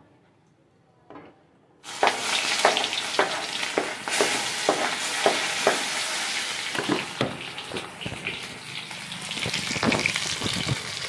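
Sliced onions and whole spices frying in hot oil in a kadhai, sizzling loudly with frequent crackles and pops. The sizzle starts suddenly about two seconds in, after near silence.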